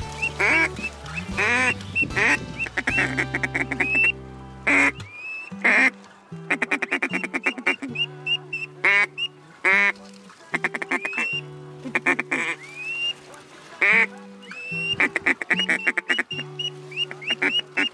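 Duck quacking in quick runs of short, nasal calls, repeated many times, over background music with held low notes.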